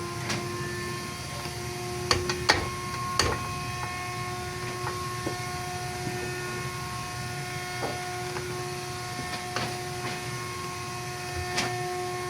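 A steady machine hum with a few sharp knocks, three in quick succession a couple of seconds in and one more near the end.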